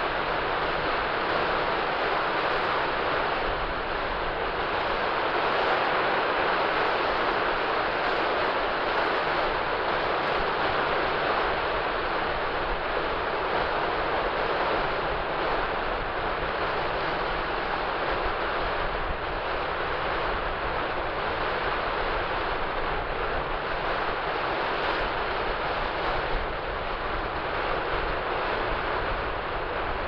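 Steady rushing of small waves breaking offshore and washing up a shallow, flat sandy beach.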